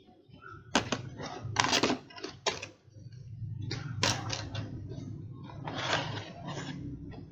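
Cardboard packaging being handled as a CPU cooler box is opened: a quick run of sharp taps and clicks from the flaps and insert in the first couple of seconds, then softer rustling and scraping as the stock AMD cooler is shifted and lifted in its cardboard tray.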